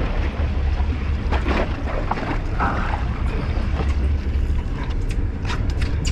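Low, steady rumble of wind and a boat's motor on the microphone, with a few light knocks and clicks, most of them near the end.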